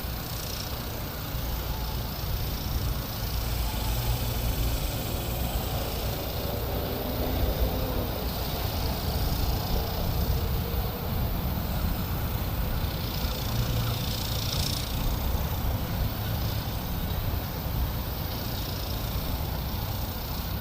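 A steady low outdoor rumble with a fainter hiss above it and no clear single event.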